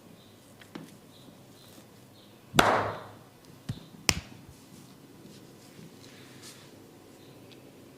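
Barber's hands at work in a head massage: one loud slap-like hit about two and a half seconds in, then two short sharp cracks about a second and a second and a half later, with a few fainter taps around them.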